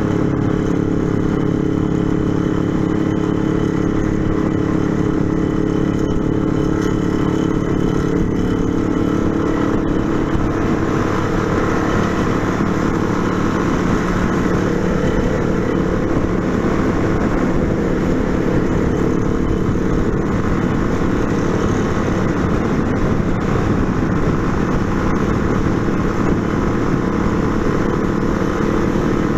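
Yamaha Fazer 250 motorcycle engine running steadily at cruising speed on the road.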